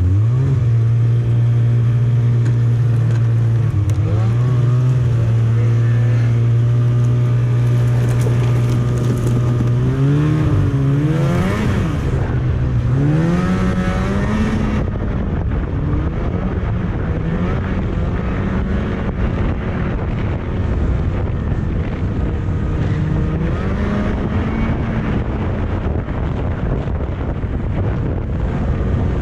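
Snowmobile engine running under way: a steady drone for the first third, then rising and falling several times as the throttle changes, then running on with a rougher sound and wind on the microphone.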